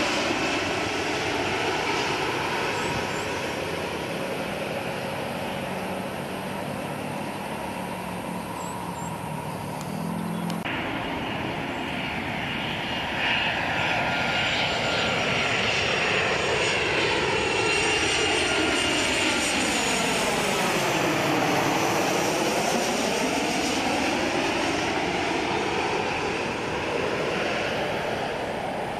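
Jet airliners on landing approach passing low overhead. First an Airbus A320-200's engines fade after it passes. After a cut about ten seconds in, a Boeing 737-800's CFM56 turbofans come in, with a whoosh that sweeps down and back up in pitch as it passes overhead about two-thirds of the way through, then start to fade.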